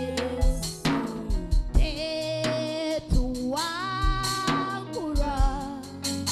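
Live gospel worship music: a singer holds long, wavering notes, one sliding upward partway through, over a drum kit and bass.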